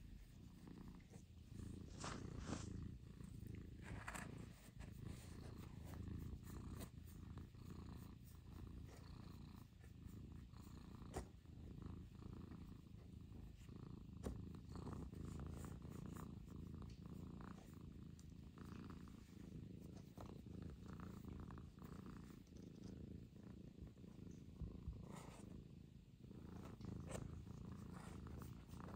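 Russian Blue cat purring steadily and faintly while its head is being scratched, with a few soft rustles scattered through.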